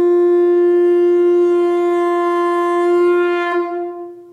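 A single long, steady note on a blown horn-like wind instrument: one pitch with many overtones. It wavers slightly and fades out near the end.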